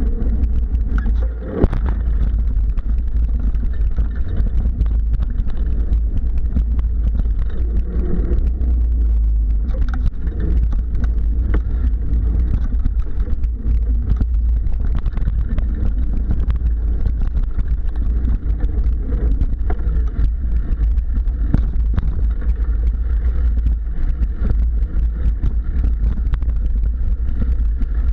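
Mountain bike riding a dirt singletrack, heard through a handlebar-mounted camera: a steady low rumble of vibration with rattles and small knocks as the bike runs over the bumpy trail, and a sharp knock about a second and a half in.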